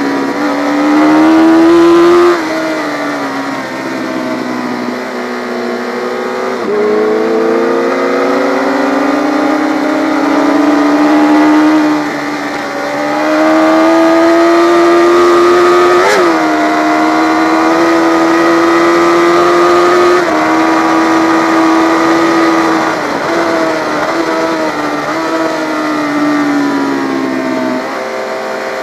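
Yamaha FZ600 race motorcycle's inline-four engine running hard on track. Its pitch climbs and then drops sharply again and again as the rider changes gear, loudest near the start.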